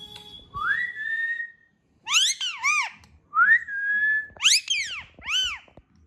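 Indian ringneck parakeet calling: twice, a whistle that slides up and then holds, each followed by a pair of short, sharp rising-and-falling calls.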